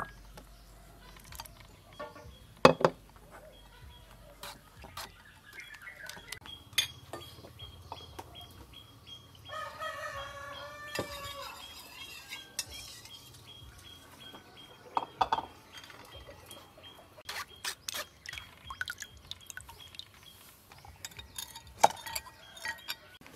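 Metal spoon clinking and scraping against glass and ceramic bowls while a mixture is stirred, in a run of short irregular clicks. A rooster crows once, about ten seconds in.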